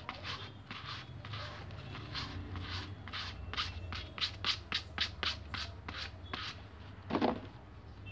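Fine sandpaper rubbed back and forth on a rubber bicycle inner tube around the puncture, in quick repeated strokes that come faster, about four a second, in the middle. This roughens the rubber so the patch will grip. The strokes stop about six and a half seconds in, followed by one short, louder handling sound.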